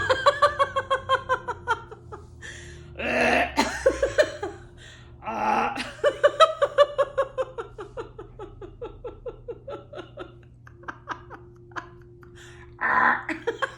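A woman doing laughter-yoga 'burping laughter': a forced burp-like belch, then a long run of rhythmic 'ha-ha-ha' laughter that falls in pitch. This happens four times, at the start, about three seconds in, about five seconds in, and near the end. The longest laughing run lasts about five seconds and trails off.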